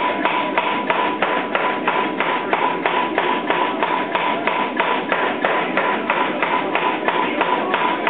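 400 lb Chambersburg air hammer striking a hot 4140 steel billet in a steady run of blows, about four a second, drawing out a hammer head. A steady high whine runs underneath.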